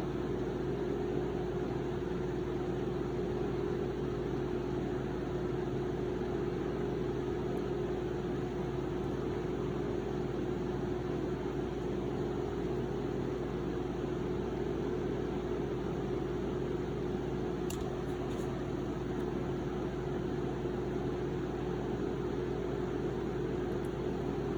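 Steady machine hum with a constant tone and an even rushing noise, unchanging throughout, and a faint tick about eighteen seconds in.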